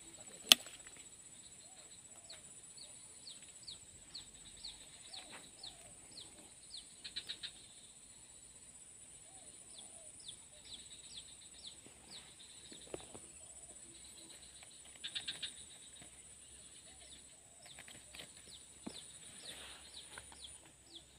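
A bird repeating short down-slurred chirps in runs, about two a second, with a few brief rapid trills, over a steady high insect drone. One sharp click about half a second in.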